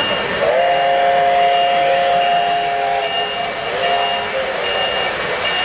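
An O-scale model locomotive's sound system blows its chord-toned horn, one long blast and then a short one about four seconds in. Over it, the electronic crossing signal beeps steadily, a high beep a little more than once a second, as the freight train rolls through the crossing.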